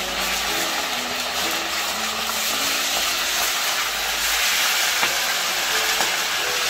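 Trout frying in hot oil in a wok: a loud, steady sizzle.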